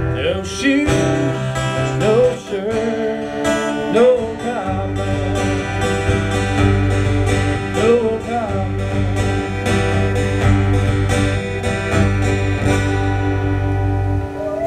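Live band music: a country-style song with strummed acoustic guitar over a steady bass.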